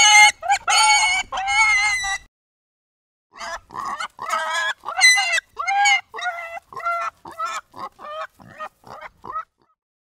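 Pig squealing: a fast run of short, high-pitched squeals, a pause of about a second, then another run of squeals that grow shorter and fainter toward the end.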